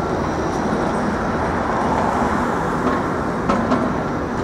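Steady street traffic noise from passing vehicles, with two short clicks about three and a half seconds in.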